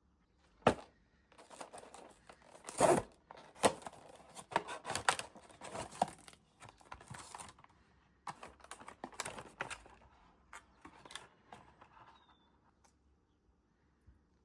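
Blind-box packaging being torn open and crinkled by hand. A sharp tap about a second in is followed by irregular bursts of tearing and rustling, which stop near the end.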